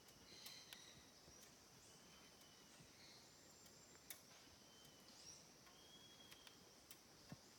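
Faint steady insect drone with a few short bird whistles, broken by scattered sharp cracks of collared peccaries biting open hard rubber tree seeds, the loudest about four seconds in and again near the end.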